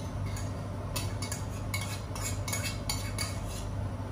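A metal spoon scraping and clinking against a stainless steel saucepan and a stoneware bowl as sauce is spooned out: a run of small, irregular clinks over a steady low hum.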